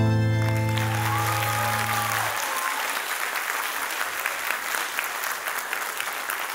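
Audience applauding as the song's last held chord dies away over the first couple of seconds; the clapping then goes on alone.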